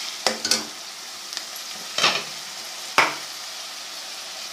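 Crushed onion frying in hot ghee in a pan, a steady sizzle, with four sharp knocks as it is stirred.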